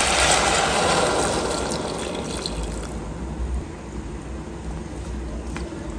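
Water poured into a hot steel pot of sautéed kabocha squash, hissing as it hits the hot oil. The pour ends about two seconds in and the sizzle fades to a quieter crackle.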